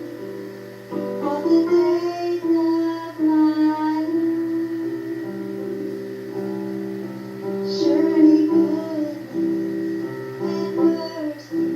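A woman singing a simple children's worship chorus, accompanied on an electronic keyboard.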